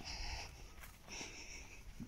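Faint buzzy animal calls, each about half a second long: one at the start and another a little past the middle, over a low rumble.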